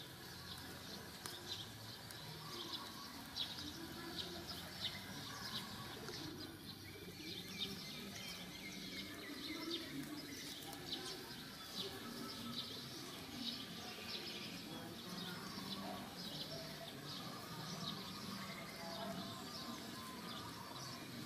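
Outdoor ambience of small birds chirping, many short high chirps repeating over a low background murmur.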